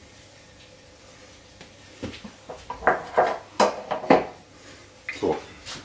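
Metal kitchen utensils and a baking tray clattering, a run of sharp clanks with short ringing, starting about two seconds in, with a last pair of clanks near the end.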